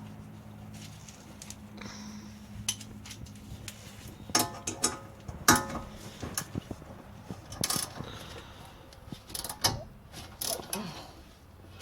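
Hand tools clicking and clinking against metal, in irregular sharp knocks, some with a short metallic ring, as a car's rear brake caliper is unbolted.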